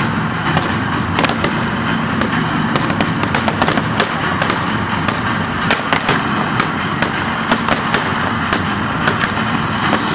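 Fireworks display going off: a dense, unbroken run of sharp bangs and crackles, several a second, over steady background music.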